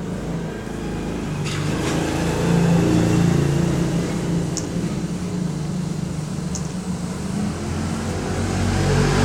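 A steady low motor hum whose pitch shifts slightly, swelling a little about a third of the way in and again near the end, with two faint short ticks.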